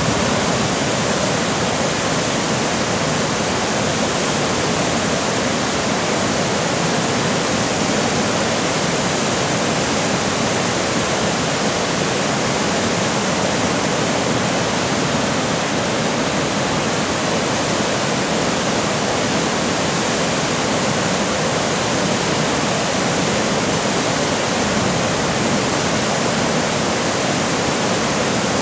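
River whitewater rapids rushing steadily, a constant even roar of water.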